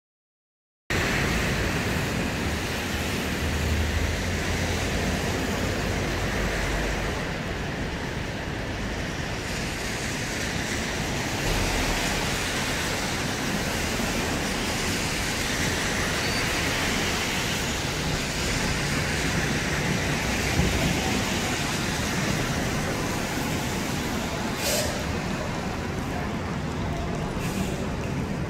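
City street traffic noise with buses and cars running and passing, starting about a second in and holding steady throughout. A short hiss comes about three seconds before the end.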